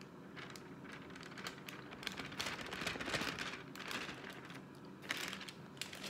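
Plastic microwave steam bag crinkling and rustling as it is handled and tipped, in irregular crackly bursts that are busiest from about two to five seconds in.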